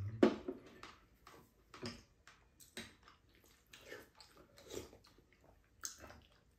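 Two people eating kimchi chicken stir-fry and rice: chewing and mouth smacks, with scattered light clicks of chopsticks and spoons.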